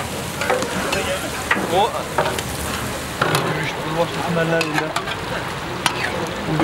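Food sizzling and frying in hot oil in a large pilaf cauldron while it is stirred, with a steady hiss broken by frequent sharp scrapes and knocks of the metal stirring tool against the pot.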